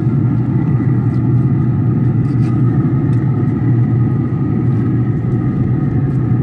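Steady hum and rumble of a Traeger pellet grill's fan running, with a faint, even whine above it. A few faint clicks come from the wooden spoon stirring in the cast-iron Dutch oven.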